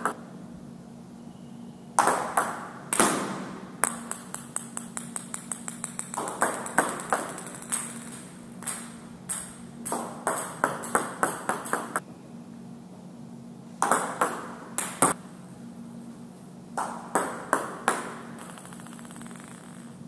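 Table tennis ball clicking off the bat and bouncing on the table during a series of forehand serves, in groups a few seconds apart, each ending in a run of quickening, fading bounces. A steady low hum lies underneath.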